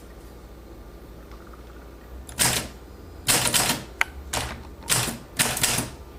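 Keys of a 1949 Smith Corona portable manual typewriter being struck: a run of sharp clacks in uneven clusters, starting about two seconds in.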